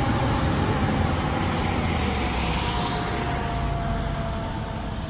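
Fire engine on an emergency response driving away, its engine and siren fading with distance, with a steady tone sliding slowly lower.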